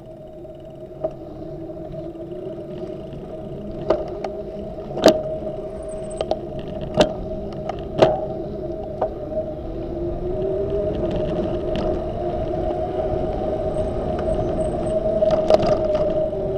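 Bicycle rolling along a paved path, with a steady hum under a rush of road and wind noise that grows louder as it goes. Sharp knocks and rattles come as it jolts over bumps, the loudest about five and eight seconds in.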